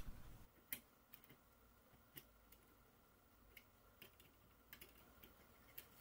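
Near silence with about nine faint, scattered small clicks, like tweezer tips touching the cut metal pieces of a controller joystick's frame.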